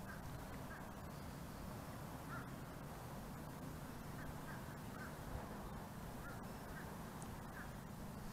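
Faint open-air ambience over water: a steady low background noise with scattered short, faint bird calls about every second or so.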